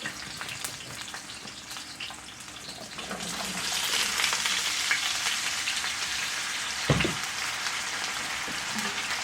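Potatoes and onions frying in hot Crisco shortening in a cast-iron skillet: a steady sizzle that grows louder about three seconds in as the potatoes go in. A single knock sounds about seven seconds in.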